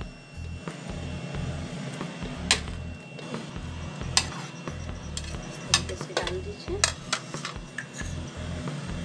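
A spoon clinking and scraping on a plate as cut mango is pushed off it into a blender jar, with several sharp clinks through the middle. Background music with a steady beat plays throughout.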